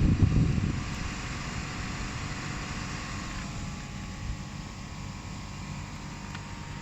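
Commercial air-conditioning units running in heat mode: a steady drone of fans and compressors with a few faint steady tones in it. A loud, gusty low rumble fades out within the first second.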